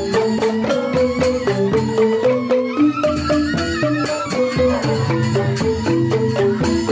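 Balinese joged bumbung gamelan playing: bamboo xylophones struck in quick, busy patterns, with bamboo suling flutes carrying a wavering melody above them.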